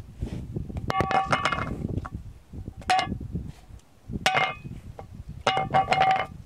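Empty Grizzly Wintergreen dip tin clinking as it is handled, in short metallic clicks with a brief ringing tone. The clicks come in clusters about once every second or two.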